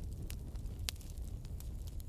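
Burning firewood crackling: a steady low rumble of flames with scattered sharp pops, the loudest about a second in.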